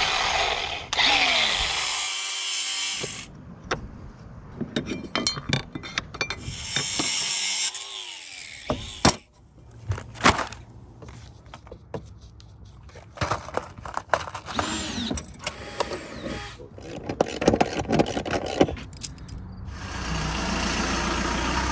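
Power tools running in short separate bursts, a cordless angle grinder among them, with clicks and knocks of parts and hardware being handled in between.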